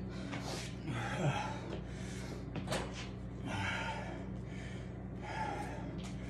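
A man breathing hard after a hard exercise set, several heavy breaths a second or so apart, over a faint steady hum.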